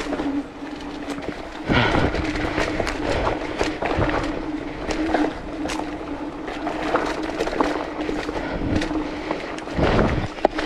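Polygon Siskiu T8 full-suspension mountain bike descending rocky dirt singletrack: the 29-inch Maxxis Dissector tyres roll and scrub over dirt and rocks, with frequent clatter and knocks from the bike and a steady hum underneath. The knocks grow louder and rougher near the end.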